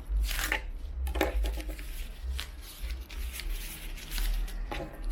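A mail package being cut and worked open with a dull knife: irregular scraping, rustling and crinkling of the packaging, with low bumps of handling.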